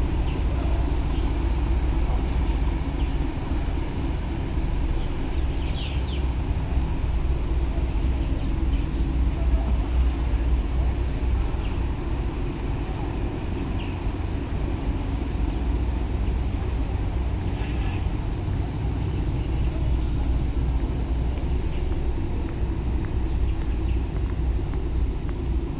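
Steady low outdoor rumble of river-side ambience, with a faint high chirp repeating about once a second.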